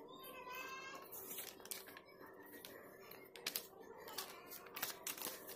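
A sheet of paper rustling and crinkling as it is handled, with many short clicks and taps, over a steady low hum; a brief rising tone comes near the start.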